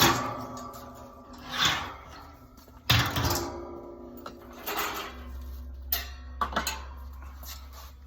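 Metal rack parts clanking as a display rack is assembled: a handful of knocks with a metallic ring, the loudest at the very start and about three seconds in.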